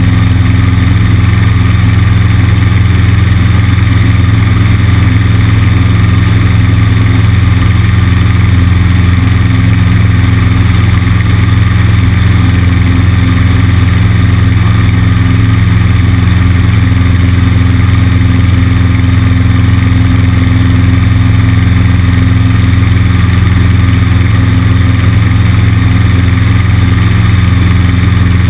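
Cessna 150's four-cylinder Continental O-200 engine and propeller running steadily at constant power, heard loud and close from a camera mounted on the wing.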